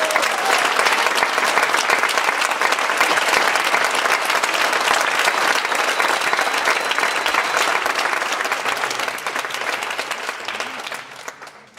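Audience applauding: a dense, steady clapping that thins out and dies away near the end.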